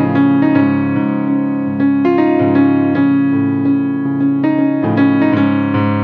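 Background piano music: a keyboard melody with notes struck about twice a second over sustained chords.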